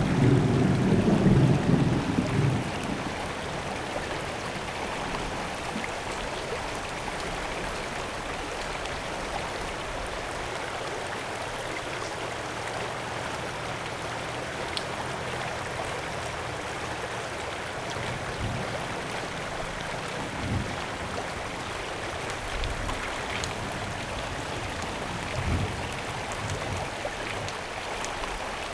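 Thunder rumbling and dying away over the first two or three seconds, then a steady hiss of rain and running river water, with a few faint low rumbles later on.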